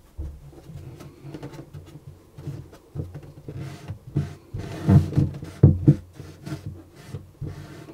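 Cotton wad rubbing over a cello's wooden body, with hand-handling rustles and a few soft knocks against the instrument, the loudest about five and six seconds in.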